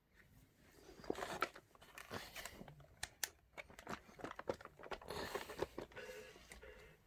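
Faint irregular clicking and crinkling rustle, with no music or singing.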